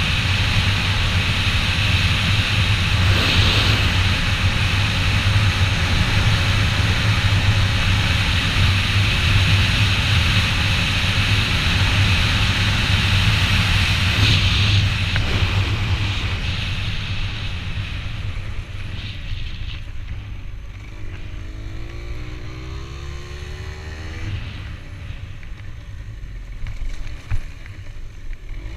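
A vehicle engine running steadily, then fading and growing quieter after about fifteen seconds.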